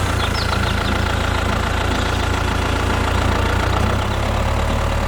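An engine running steadily at idle: a constant low drone with a thin, steady whine above it.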